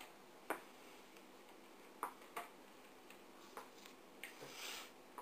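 Slow hunt-and-peck typing on a white Apple computer keyboard: about five single key clicks, sharp and spaced irregularly a second or so apart, as letters are pressed one at a time.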